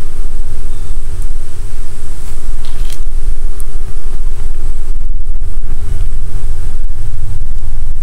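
Loud, steady low rumble of wind buffeting the microphone, with a faint steady hum underneath and a few faint clicks about three seconds in.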